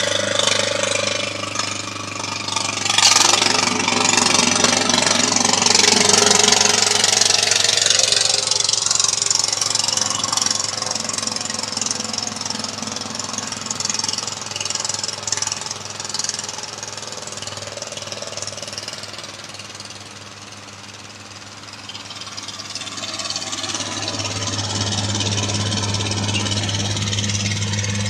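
Murray 10/30 riding lawn mower running steadily, with a loud rushing hiss over the engine for much of the first half. The sound fades for a few seconds past the middle, then the engine grows louder again near the end.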